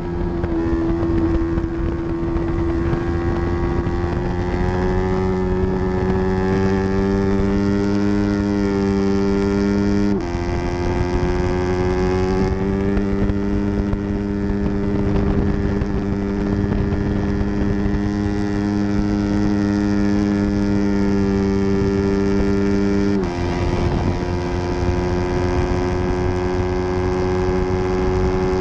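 Yamaha R3's parallel-twin engine running hard at high revs under race load, its pitch steady and slowly climbing, with a sudden brief dip in revs about ten seconds in and again about twenty-three seconds in.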